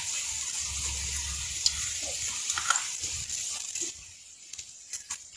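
A steady rushing hiss, like running water, that drops away about four seconds in, with a few light clicks of a metal fork against oyster shells.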